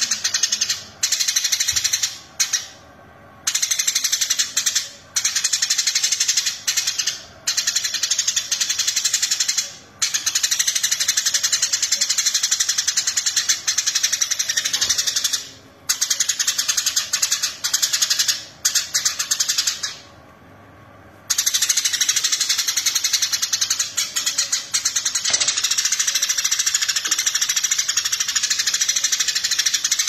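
Eurasian tree sparrow chattering: long runs of fast, high-pitched chirps broken by short pauses, the longest pauses about three seconds in and about two thirds of the way through.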